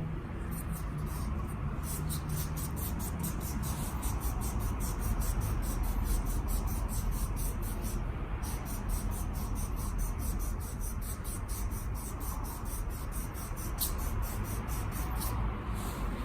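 Rapid rhythmic hand scrubbing of the scooter's rear brake parts, about four to five scraping strokes a second, cleaning off rust and grime from the seized brake, over a steady low hum.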